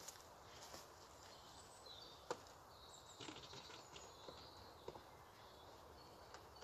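Quiet outdoor background with faint bird chirps and a few light clicks and knocks, the sharpest about two seconds in.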